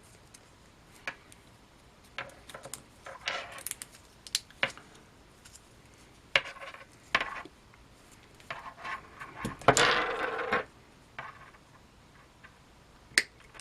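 Small metal tools and wires being handled on a workbench: scattered light clicks and clinks, with a longer scraping rustle about ten seconds in.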